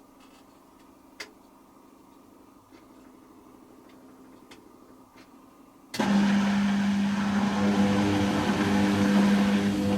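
Hoover Quattro System Power Jet washing machine during its rinse cycle: a quiet low hum with a single click, then about six seconds in a loud steady hum starts suddenly over rushing water.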